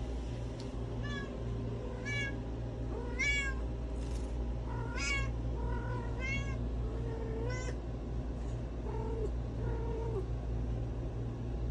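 Cat in heat calling for a mate, meowing over and over about once a second, with some calls high and some lower and drawn out.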